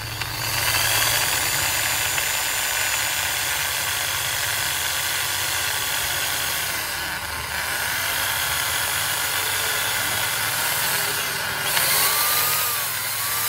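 Electric drill running steadily as its bit bores into the end of a bamboo tube, the motor's whine easing briefly about seven seconds in and rising again near the end.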